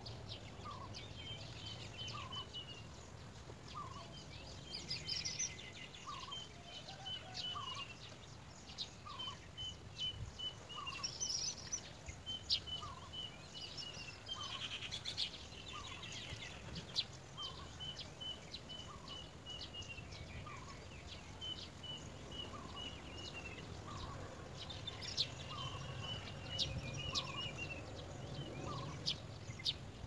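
Outdoor birdsong from several birds. One bird repeats short phrases of quick high notes every couple of seconds, while another gives a lower single note about once a second. Higher chirps from other birds come in now and then.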